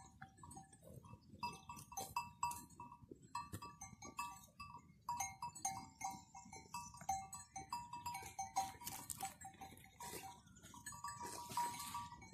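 Small metal bells clinking irregularly, several short ringing notes a second at two fixed pitches, over a faint low rustle.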